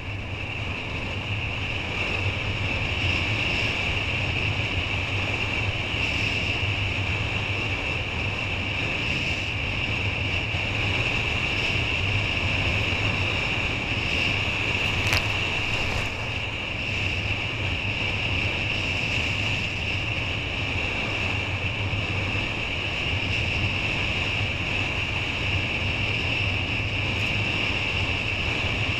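Steady wind buffeting a body-mounted action camera's microphone, over water rushing past a kiteboard riding across the sea. There is a single brief click about halfway through.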